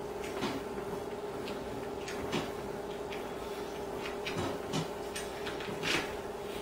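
A few small, scattered clicks and rubs of hands working wire twist ties off cast iron grill grate inserts and shifting the cast iron pieces in their cardboard tray, over a steady faint hum.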